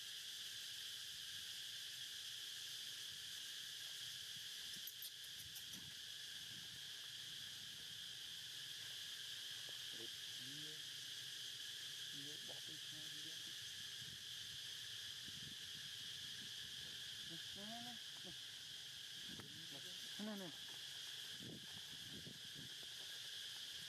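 Steady high-pitched drone of insects in the forest, with a few faint, short pitched sounds rising and falling about ten seconds in and again near the end.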